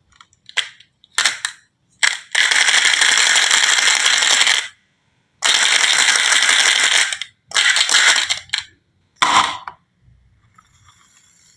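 Marbles clattering and rolling on a wooden marble run. A few short clicks and clatters come first, then two long runs of steady rolling rattle about two seconds each, then a few more short clatters near the end.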